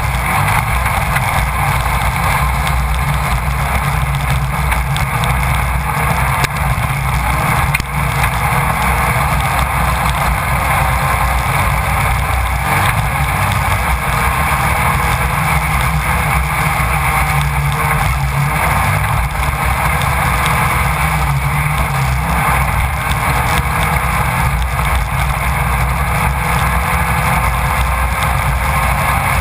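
Class 1600 off-road race buggy's air-cooled VW engine running hard and steady, heard through the camera mounted in the car, under a constant noisy rush.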